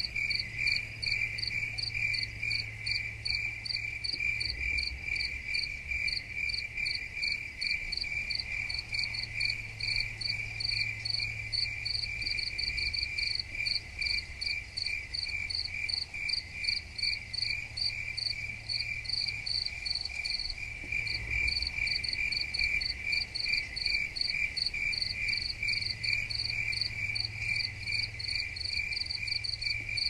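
Crickets chirping in a steady, even rhythm of short, high chirps, several every second. A faint low hum comes and goes underneath.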